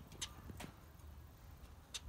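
Caged zebra finches giving short calls: two in the first second and another right at the end, over a low steady hum.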